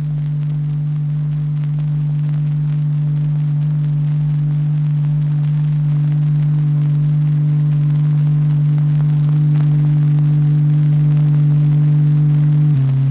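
A steady low electronic tone with a few overtones, the vibration tone that sets the dyed liquid drop swirling into paired vortices, slowly growing louder. Near the end it steps down to a lower pitch.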